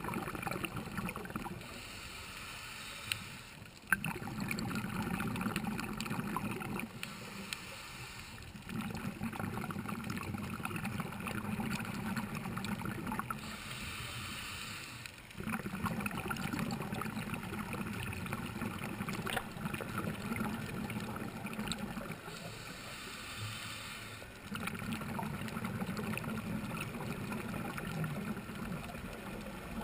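A scuba diver breathing through a regulator underwater. A hissing inhale of about two seconds alternates with a longer, louder bubbling gurgle of exhaled air, four breaths in all.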